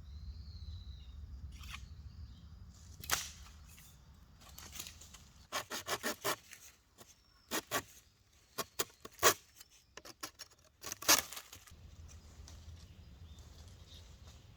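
Dry twigs and leaf litter crackling and snapping in short clusters between about three and eleven seconds in, over a low steady rumble.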